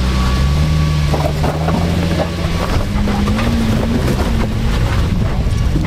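Off-road Jeep engine working at low speed while crawling up a rock waterfall, its pitch rising and falling with the throttle and rising about halfway through. A few knocks sound over it, along with wind on the microphone.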